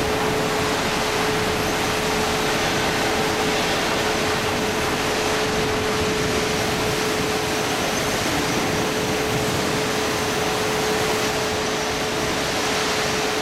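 TFI CNC-6000H gantry plate drilling machine drilling steel plate: a steady whine at one pitch over an even hiss.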